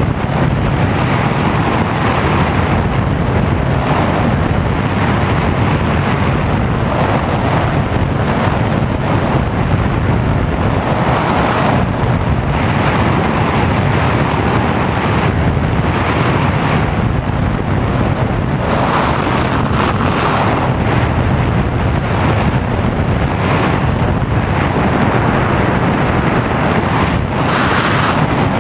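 Airflow rushing over the onboard camera's microphone of a Sky Surfer RC glider in a motor-off glide, a loud steady rush that swells and eases every few seconds.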